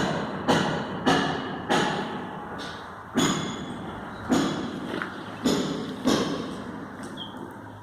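Squirrel calling with a series of short, sharp barks, each fading quickly, coming irregularly with a longer pause about two seconds in and another near the end.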